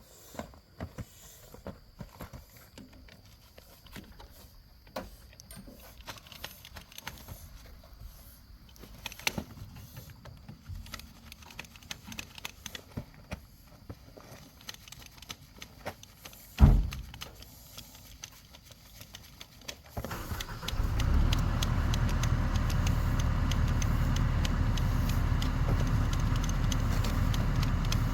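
Scattered clicks and rattles, then a single loud thump about 17 seconds in. About 20 seconds in an excavator's engine starts up and runs steadily to the end.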